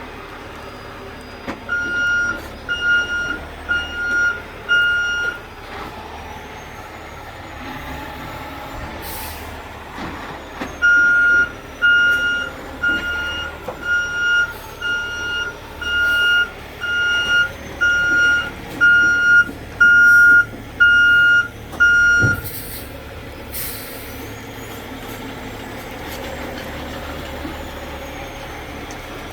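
Heavy tow truck's reverse alarm beeping about once a second, four beeps near the start and then a run of about a dozen more, over the truck's engine running steadily. Short hisses of air from the truck's air brakes come between and after the beeping.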